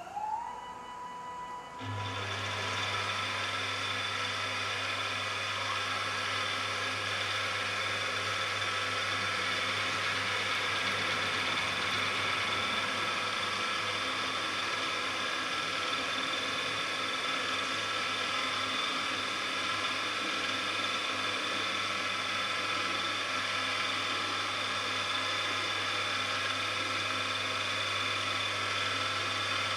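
Stepper-motor feed drive on a milling machine's X-axis running, its whine gliding up in pitch as it speeds up and then holding steady. About two seconds in, a louder steady machine noise with a low hum joins and runs on evenly.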